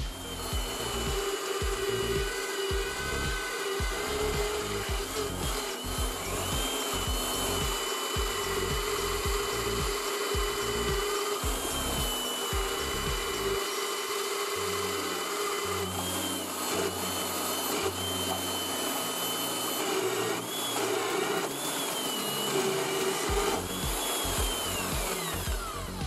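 Drill press motor running with a steady whine as a twist bit drills through a small metal plate; the whine falls away near the end as the spindle spins down. A steady beat of background music underneath.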